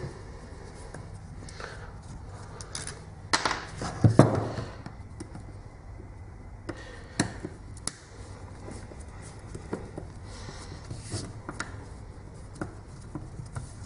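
Screwdriver being worked on an angle grinder's housing to take it apart. Scattered small clicks, scrapes and knocks of the tool and parts, with a louder clatter a few seconds in and a couple of sharp ticks later on.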